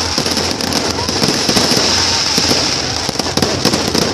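Fireworks display: a dense, continuous run of crackling pops and bangs from exploding shells.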